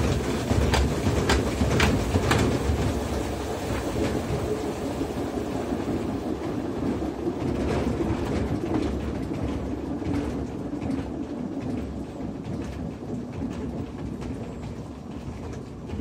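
Electrolux LAI17 17 kg top-load washing machine spinning fast with a slightly unbalanced towel load, a steady rumbling whir with rapid clattering knocks in the first few seconds. It grows gradually quieter over the second half.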